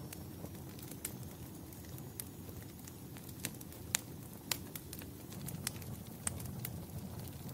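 Wood fire burning in a fireplace: a steady low rumble of flames with scattered sharp crackles and pops, the loudest about four seconds in.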